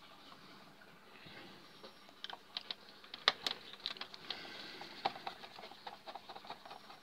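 Screwdriver working the screws of a DVD drive's sheet-metal cover loose: scattered light metal ticks and scrapes, with a sharper click about three seconds in.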